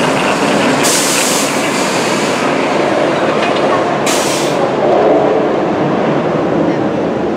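Steel roller coaster train (Intamin hydraulic-launch Kingda Ka) running along its track, a loud steady rushing rumble, with two brief hissing bursts about a second in and about four seconds in.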